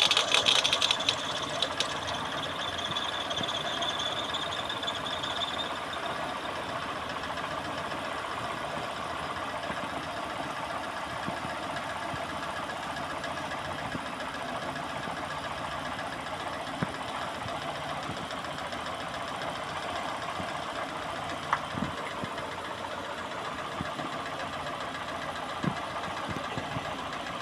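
Peugeot 206 engine idling with its accessory drive belt squealing shrilly; the squeal fades and dies out after about six seconds, leaving the engine running steadily. The squeal stopping once candle wax is on the belt points to the belt itself slipping rather than a bad pulley bearing.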